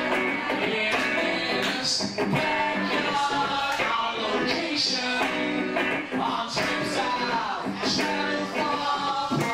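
A man singing a rock song into a microphone while strumming an electric guitar, performed live.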